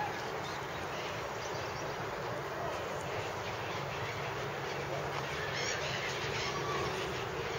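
Steady, even outdoor noise by a park pond, with faint calls of waterfowl such as ducks.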